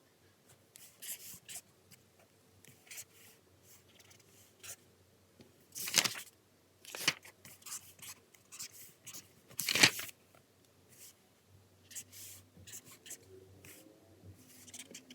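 Pen writing on paper, short scratchy strokes with light paper rustling, and two louder sharp paper or desk sounds about six and ten seconds in.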